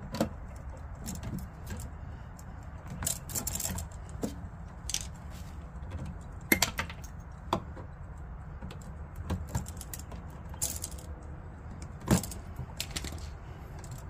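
Scattered sharp clicks and short rattles of stiff copper wires and a hand tool being handled at a plastic switch box as the neutral wires are made up, over a steady low rumble.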